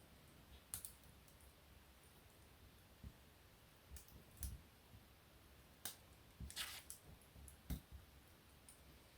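Wood fire in a fireplace crackling softly: scattered single pops and snaps over a faint low background, with a short run of crackles about two-thirds of the way through.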